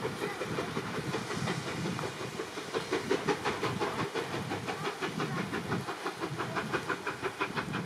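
Steam locomotive pulling away into the distance, with quick, regular exhaust chuffs over a steady hiss.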